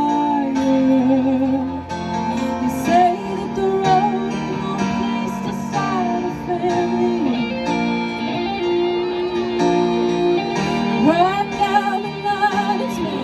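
A live band playing a song: electric guitars and keyboard, with a woman singing.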